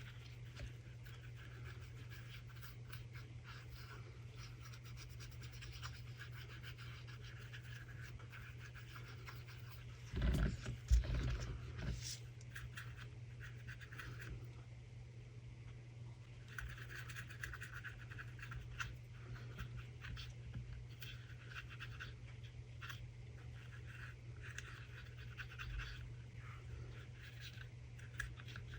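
Short stubby brush rubbing and scratching chameleon flakes onto small resin pieces in quick repeated strokes, with a few louder knocks about ten to twelve seconds in. A low steady hum runs underneath.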